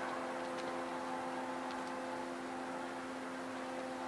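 A steady mechanical hum of several held tones over a faint hiss, with a few faint ticks.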